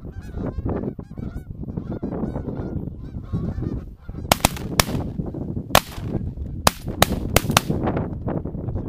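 A flock of Canada geese honking as it circles low over the decoys; about four seconds in, a rapid volley of about seven or eight 12-gauge shotgun shots from several hunters breaks out within some three seconds, the geese still honking through it.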